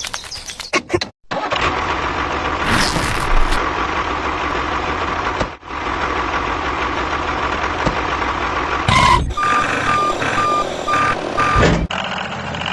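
Truck engine running, then a reversing alarm sounding a series of short, evenly spaced beeps, about two a second, for a couple of seconds.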